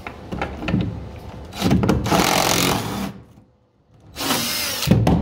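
Cordless impact driver hammering at the rusty bolts in a truck's wooden bed boards: a few light knocks, then two bursts of rapid rattling with a short pause between.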